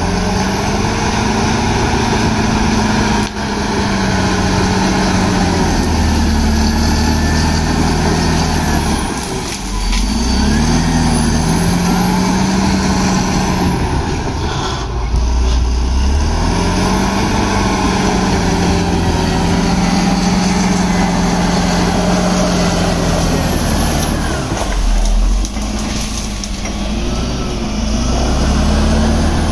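Caterpillar D7 crawler dozer's diesel engine working under load as the blade pushes earth and brush. Its pitch sags and recovers several times, with a high whine over the engine.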